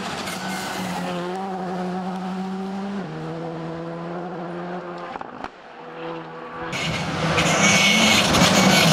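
Rally car engine holding steady revs, its pitch stepping down about three seconds in. About five and a half seconds in there is a sharp click and the sound briefly drops away; near the end the engine comes back loud under hard acceleration.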